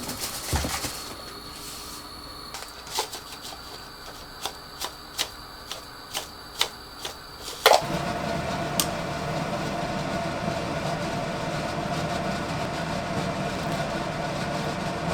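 A run of evenly spaced clicks, about two a second, over a faint steady high tone. Then a loud clunk about eight seconds in, and a steady hum of a running household appliance.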